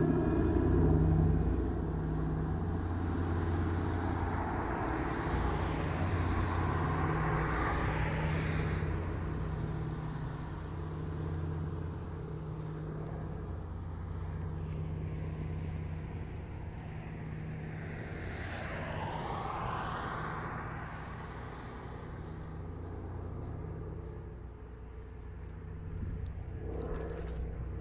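Steady low drone of the Douglas DC-3's twin Pratt & Whitney R-1830 radial engines, slowly fading as the plane flies away. Two road vehicles swish past close by, about five and about nineteen seconds in.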